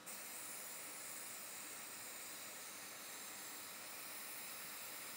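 Faint, steady hiss of background air noise, even throughout, with no distinct clicks or tool sounds.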